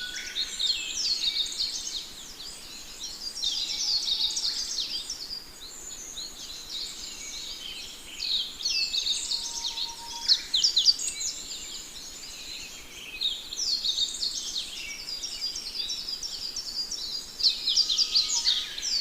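A flock of sparrows chirping busily, many short overlapping chirps with no pause.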